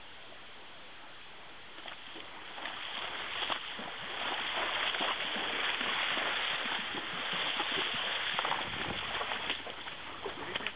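A horse's hooves splashing and sloshing through a shallow, stony creek, with repeated splashes and knocks of hooves on the stones. The splashing starts about two seconds in and gets louder.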